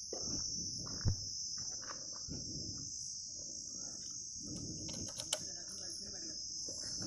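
Steady high-pitched chirring of insects, with faint low murmuring, a small knock about a second in and a sharp click about five seconds in as the motorcycle's ignition key is handled.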